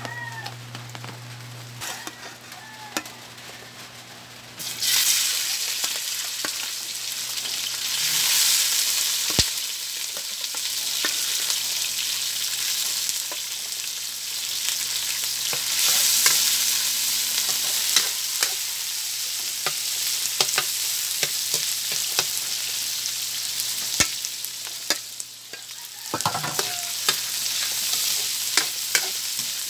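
Diced pork frying in a steel wok, a loud sizzle that starts about five seconds in, with sharp pops and a metal spatula scraping the pan as it is stirred near the end.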